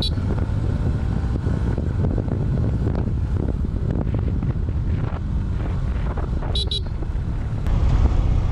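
Motorcycle riding along with its engine running under heavy wind buffeting on the microphone. About six and a half seconds in comes a quick run of three short, high-pitched beeps.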